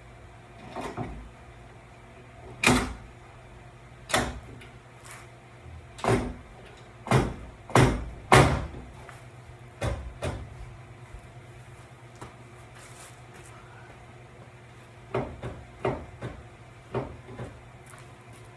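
A car's front splitter being fitted onto its quick-release mounts: a series of irregular knocks and clunks as the panel is handled and pushed into place, the loudest in the first half and a few more near the end, over a low steady hum.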